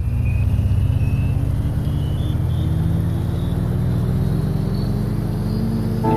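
A steady low drone, like a running engine, with a faint high whine that slowly rises in pitch.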